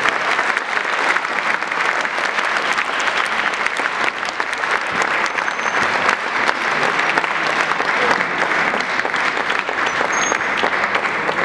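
A concert-hall audience applauding steadily, a dense even clapping.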